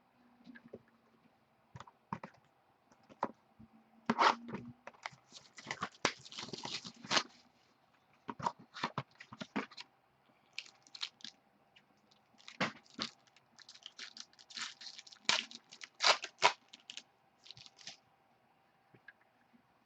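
A sealed trading card hobby box being opened by hand: cardboard and plastic wrapper crinkling and tearing, with sharp clicks as the cards are handled. It comes in irregular bursts, busiest a few seconds in and again about two-thirds of the way through.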